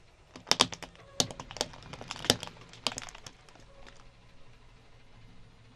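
Plastic hair claw clips cracking and snapping under a slowly rolling car tyre. A quick run of sharp cracks fills the first three seconds or so, then fades to a few faint crackles.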